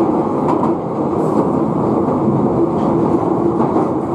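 London Underground Piccadilly line 1973 Stock train running at speed through a tube tunnel, heard from inside the carriage: a loud, steady rumble of wheels on rail with a steady hum and a few faint clicks.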